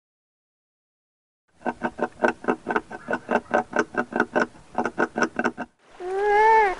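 Beaver vocalizing. After a silent start, it gives a rapid, even series of short pitched pulses, about five a second, for about four seconds. Near the end it gives a whine that rises and then falls.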